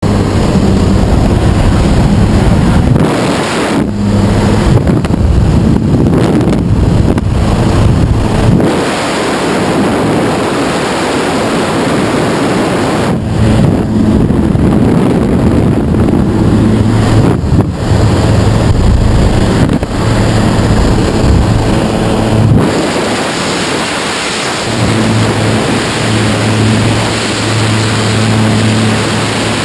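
Loud rush of wind through the open door of a skydiving plane in flight, buffeting the microphone, over the steady drone of the aircraft's engine and propeller.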